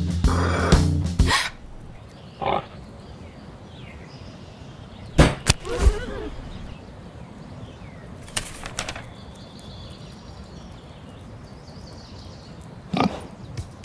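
Drum music that stops just over a second in, followed by a few short, scattered pig grunts over a faint steady background.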